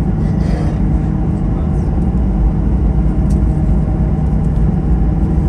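Steady low rumble of the Boeing 737-900ER's engines and airframe heard from inside the passenger cabin after touchdown.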